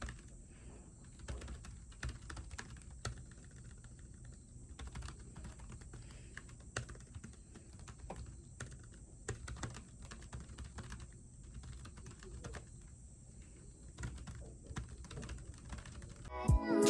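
Typing on a computer keyboard: soft, irregular key clicks. Music comes in near the end.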